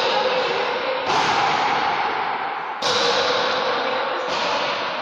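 Hollow rubber ball of paleta goma argentina struck with wooden paletas and rebounding off the court walls during a rally: three sharp cracks about a second and a half apart, each ringing on in the enclosed court's echo.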